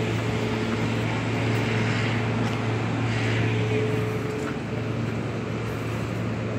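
Street traffic: a steady low engine hum from a passing city bus over general road noise.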